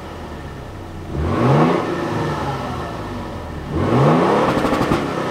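2022 Toyota Tundra's twin-turbo 3.4-litre V6 at the exhaust, revved twice from idle, about a second in and again near four seconds; each rev climbs quickly, then the engine falls back to a steady idle.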